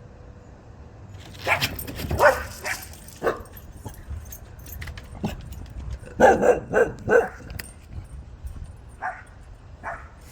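A dog barking in short bursts: a few barks about two seconds in, a quick run of four in the middle, and two fainter barks near the end.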